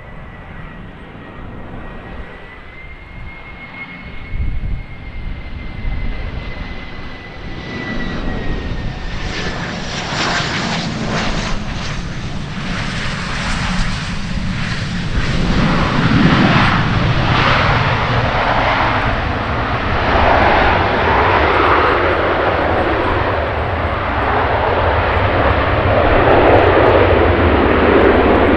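Bombardier Global 6000 business jet landing, its Rolls-Royce BR710 turbofans heard. A thin high whine dips in pitch about a third of the way in. A broad jet roar then builds and grows louder to the end.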